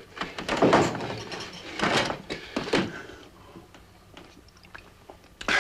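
A few hard clunks of a bottle and glass being handled as a man helps himself to liquor, then a quieter stretch with faint light clinks.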